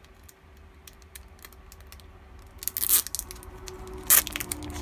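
Clear plastic packaging of a nail sticker pack being handled and pulled open: light crackling, then two loud crinkling, tearing rustles about three and four seconds in.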